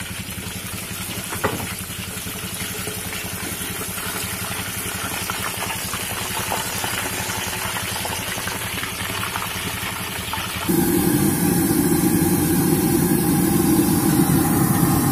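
Chicken deep-frying in a wok of hot oil under a steady, low, engine-like rumble. About ten seconds in, the sound jumps suddenly to a louder, deeper rumble as the view moves to a wok of fried rice on the stove.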